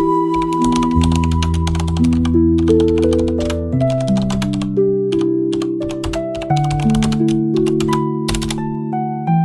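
Background music with sustained melodic notes, overlaid with rapid clicking like keyboard typing.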